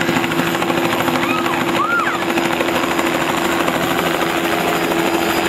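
Helicopter flying low overhead, its rotor beating in a steady rapid chop over a continuous engine hum.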